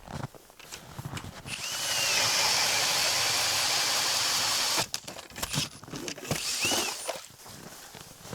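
Ice auger boring through creek ice: a steady grinding hiss for about three seconds that cuts off abruptly, followed by scattered knocks and scrapes.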